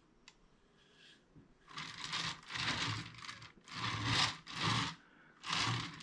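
A wooden sculpture base scraped and slid across a wooden workbench as it is turned, in a run of about five rough scrapes.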